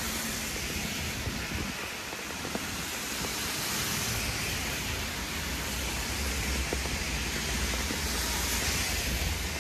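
Heavy rain falling steadily, a constant even hiss, with a low rumble underneath that grows stronger in the second half.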